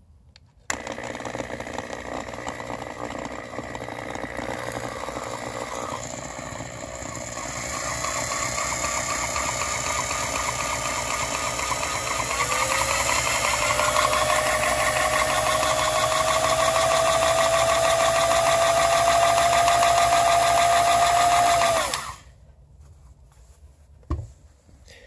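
Porter-Cable Tiger Saw quick-change reciprocating saw (10-amp, variable speed) running free with no cut: it starts about a second in, speeds up in stages with a whine rising in pitch around the middle, holds at full speed, and cuts off suddenly near the end. A single knock follows.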